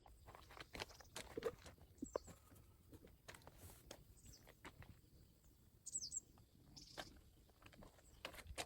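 Near silence with faint scattered clicks and taps, and a few short, high bird chirps about two seconds in and again about six seconds in.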